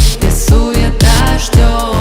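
Pop song with a sung vocal over a steady bass-drum beat, about two beats a second.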